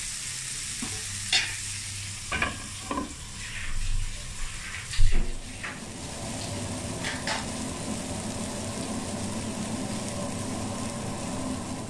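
Fish steaks sizzling steadily in a shallow layer of oil in a nonstick pan, with a spatula knocking and scraping on the pan several times as the pieces are turned over, loudest about five seconds in. A steady low hum sits underneath from about the middle on.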